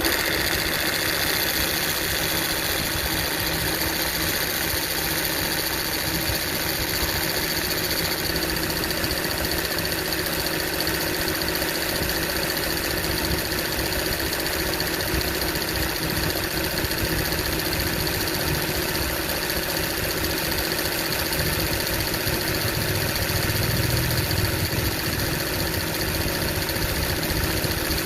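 Toyota 1HD 4.2-litre straight-six diesel idling with its air-conditioning compressor engaged, adding a steady whining noise over the engine. The owner was told this noise comes from a compressor that is too big for the engine, a size 17 where a size 15 belongs, and that it should not sound like this.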